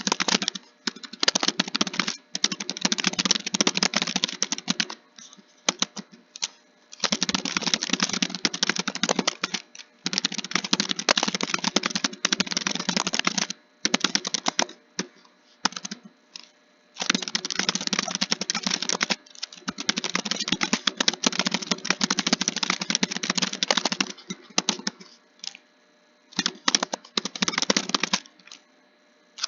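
Fast typing on a computer keyboard: runs of rapid key clicks lasting a few seconds each, broken by short pauses.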